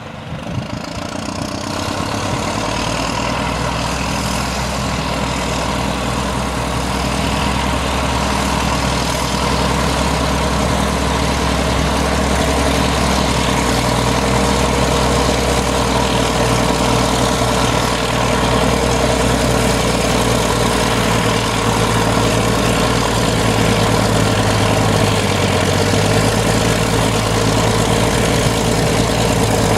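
Diesel engine of heavy Caterpillar earthmoving equipment running steadily, building up over the first couple of seconds; its deep note steps up in pitch about two-thirds of the way through.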